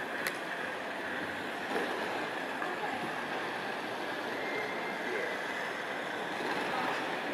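Steady airport terminal hall ambience: an even rushing noise with a faint steady high tone and no distinct events.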